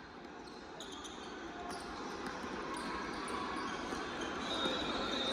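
Youth basketball game in a gym: a ball bouncing on the hardwood amid a general din of players and spectators that grows steadily louder.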